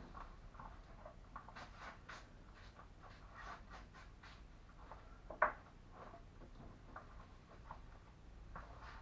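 A barber's gloved hands handling and sectioning hair, heard as irregular soft scratchy rustles and ticks, with one sharper click about five and a half seconds in.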